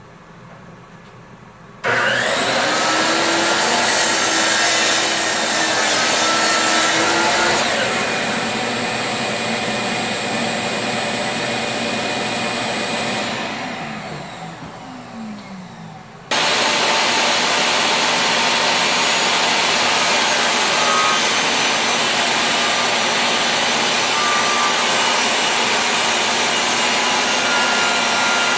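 Electric power saw cutting wood. The motor starts with a rising whine about two seconds in and runs loud and steady, then winds down with a falling pitch. After an abrupt break a second long cutting run follows.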